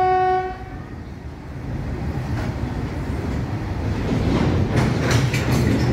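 A locomotive horn sounding one steady note that cuts off about half a second in, followed by the rumble of a freight train's open-top wagons rolling past. The rumble grows louder, and sharp wheel clicks over the rail joints come in during the last second or two.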